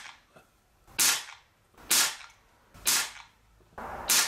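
Reximex Mito .177 pre-charged pneumatic air pistol firing four shots about a second apart, each a sharp crack with a short fading tail.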